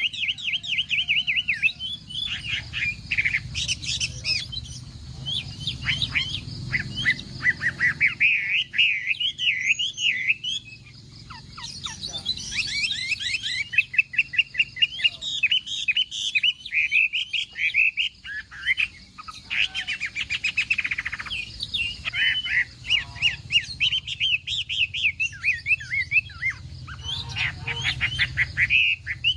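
Chinese hwamei singing a long, nearly unbroken song of fast, varied whistled phrases, with quick up-and-down trills and runs of rapidly repeated notes.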